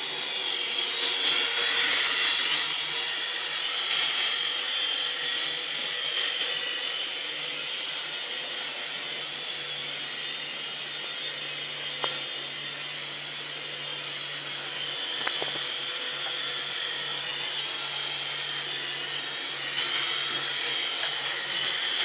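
Syma Chinook toy remote-control helicopter in flight: its small electric motors and twin rotors whine steadily at a high pitch, swelling and easing a little with the throttle. Two faint ticks come near the middle.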